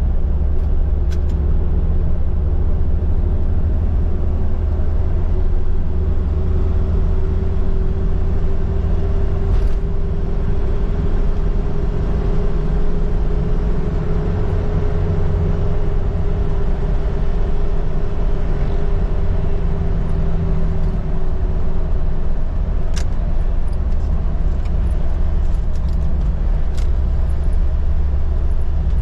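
Vehicle driving along a road: steady low engine and road rumble, with a faint humming tone that rises slightly in the middle and then falls back.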